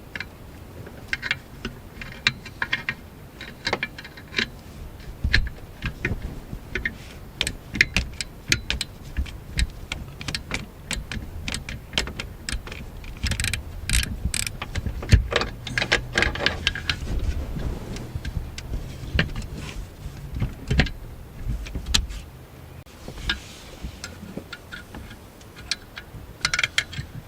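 Hand tools clicking and clinking on the alternator's mounting bolts: irregular metallic clicks, with runs of rapid ratchet clicking as the bolts are run in.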